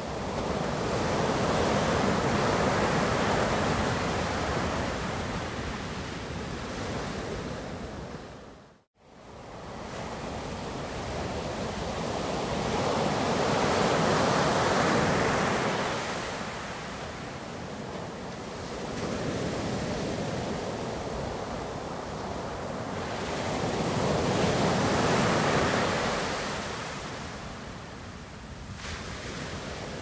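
Surf: waves washing in and falling back in slow swells, one about every ten to twelve seconds. The sound briefly cuts to silence and comes straight back about nine seconds in.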